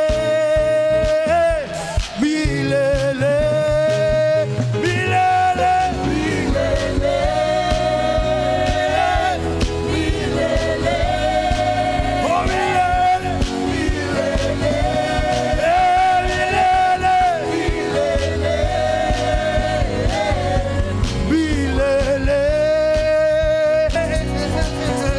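Live gospel worship song: a singer holding long, sustained notes over a full band with bass and drums.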